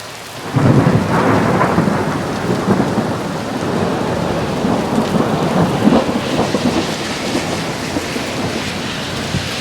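Hail and heavy rain pelting down in a dense spray of small hits that comes on suddenly about half a second in and keeps up steadily.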